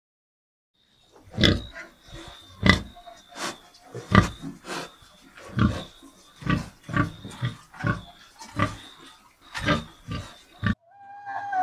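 Domestic pigs grunting over and over, short low grunts about two a second, starting about a second in.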